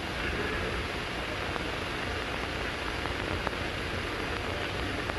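Steady hiss with a few faint clicks, with no speech.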